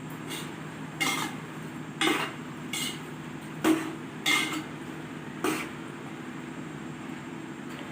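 A metal spoon knocking and clinking against a cooking pan about six times, irregularly spaced, over a steady low hum.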